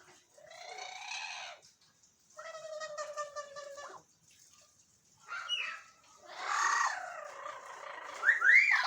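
Pet parrots calling in turn: a string of separate, drawn-out squawks and chatter, one a buzzy call that holds its pitch, ending in louder sharp whistle-like calls.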